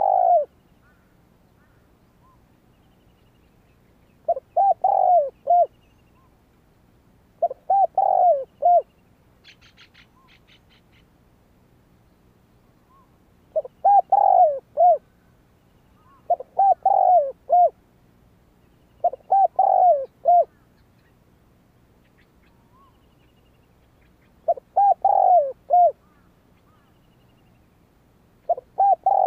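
Spotted dove cooing: eight phrases of three or four deep coos each, repeated every few seconds.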